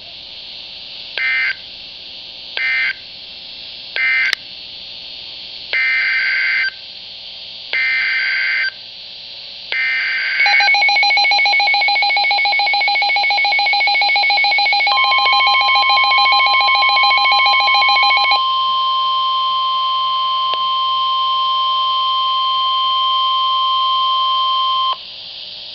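Emergency Alert System signalling on NOAA Weather Radio. Three short buzzing data bursts of end-of-message code come first, then three longer SAME header bursts. A pulsing alert tone follows for about eight seconds, and partway through it a steady 1050 Hz weather-radio warning alarm tone comes in and holds for about ten seconds before cutting off. The signalling marks the start of a hurricane warning.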